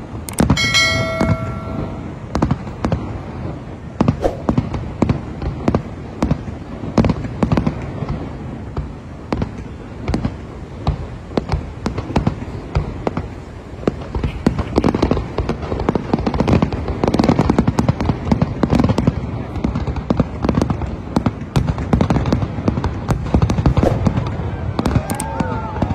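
Fireworks display: a continuous run of aerial shells bursting, with sharp bangs and crackling throughout, growing denser in the second half.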